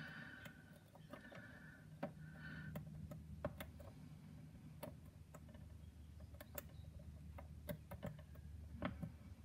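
Faint, irregular small clicks and ticks of a hobby tool tip working thin wood veneer decking inside a small plastic model lifeboat hull, over a faint low hum.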